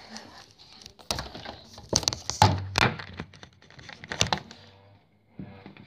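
Handling noise from a phone camera being picked up and repositioned: a run of irregular sharp knocks and clicks with rubbing in between.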